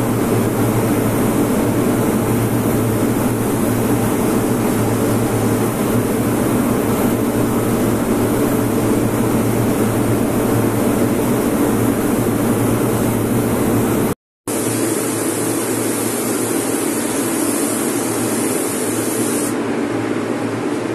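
Compressed-air spray gun hissing steadily as it sprays paint onto a motorcycle petrol tank, over a constant low machine hum. The sound cuts out briefly about two-thirds of the way through, and the hiss is brighter after that.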